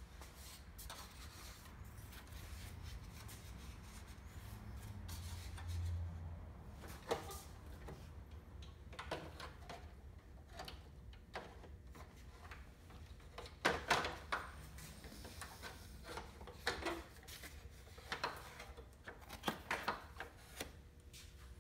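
Plastic truck grille being handled and fitted against a plastic grille bezel: rubbing and scraping, then scattered light knocks and clicks as the parts meet, with a cluster near the middle and another near the end.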